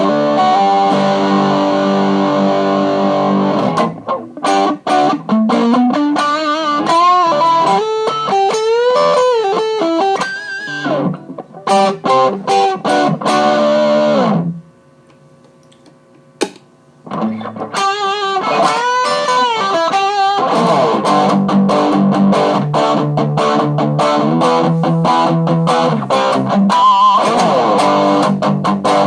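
Epiphone Sheraton II semi-hollow electric guitar played through an Aslin Dane PT-15 amp: held chords, then single-note lead phrases with string bends, a short pause about halfway, and ringing chords again for the last third.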